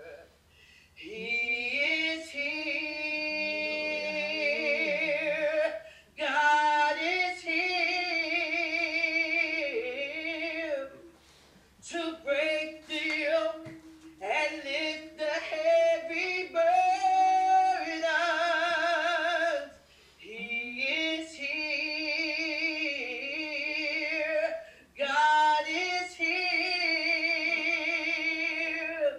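A woman singing slowly in long held notes with strong vibrato, in phrases of several seconds each broken by short pauses for breath.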